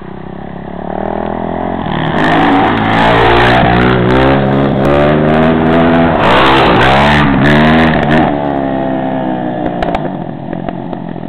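Yamaha YZ450 dirt bike's single-cylinder four-stroke engine revving hard up through the gears, the pitch climbing and dropping back at each shift. It fades after about eight seconds as the bike moves off down the road.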